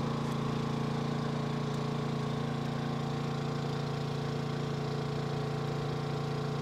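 Generator running with a steady, unchanging engine hum.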